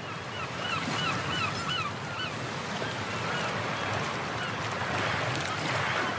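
Outdoor ambience with a steady rushing noise, and a bird calling a quick run of short, repeated notes in the first two seconds.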